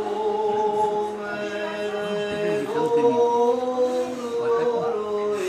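A cappella Orthodox liturgical chant: voices hold long notes over a steady low drone, the melody stepping up to a higher note a little before halfway and dropping back near the end.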